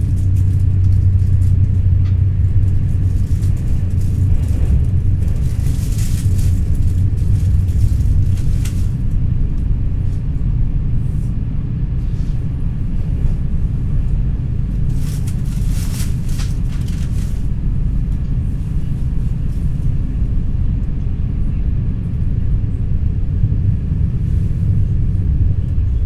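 Steady low rumble of an NS ICNG (Alstom Coradia Stream) electric intercity train running, heard from inside the passenger carriage. Two stretches of louder hiss come and go over the rumble, about a third of the way in and again past the middle.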